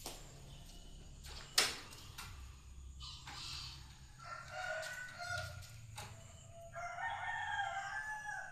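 A rooster crowing twice in the second half, each call held for over a second. A single sharp knock comes about a second and a half in and is the loudest sound.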